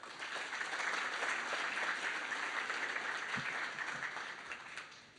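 Audience applauding, a dense patter of many hands that dies away near the end.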